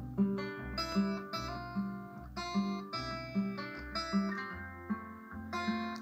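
Guitar music playing from the speakers of a Sony FH-B511 mini hi-fi system: an MP3 track read from a microSD card by its built-in add-on player.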